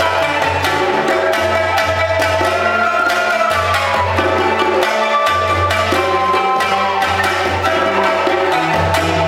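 Small Chinese folk ensemble playing a lively Xinjiang-style dance tune: pipa, Chinese bamboo flute and cello over a steady hand-drum rhythm, the cello holding low notes under quick percussive strokes.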